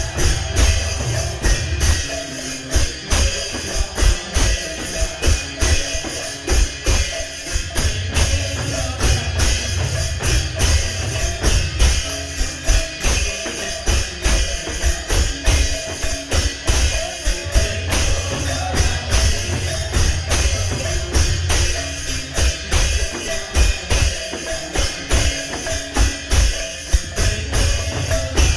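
Kirtan devotional music with no singing: a fast, steady beat of jingling hand percussion over drum strokes, with a few held tones underneath.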